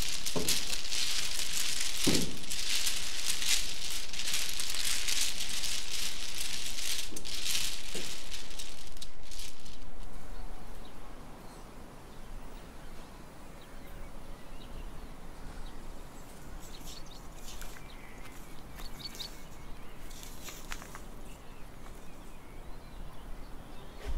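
Mahjong tiles being shuffled by hand on a table: a continuous clatter for about ten seconds that then stops. A quieter outdoor background follows, with a few faint bird chirps.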